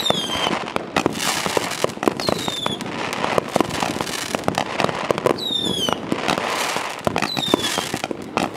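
500-shot firework cake firing shot after shot: rapid pops and cracks over steady crackling, with a high whistle falling in pitch four times.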